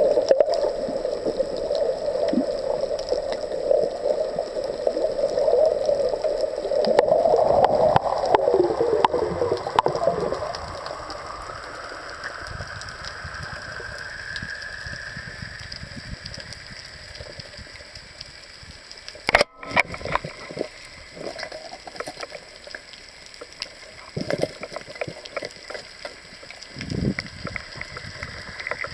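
Underwater ambience picked up through a diving camera's housing: a steady droning hum, then a whine that rises in pitch about ten seconds in. About two-thirds through comes one sharp loud click, with a few softer knocks near the end.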